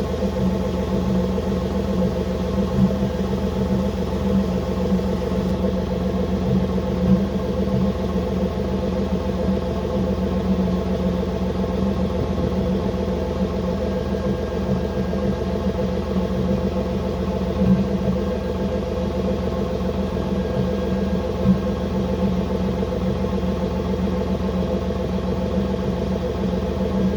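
Camaro IROC-Z's small-block Chevy V8 idling steadily, with an irregular thumping and popping in the exhaust that stands out as sharp louder pops now and then.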